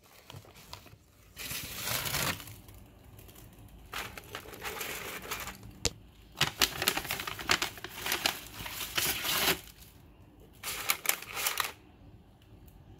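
Paper bag and paper liner crinkling, with sharp clicks of metal tongs, as breaded croquettes are picked up and set down. The noise comes in about four bursts, the longest and busiest in the middle.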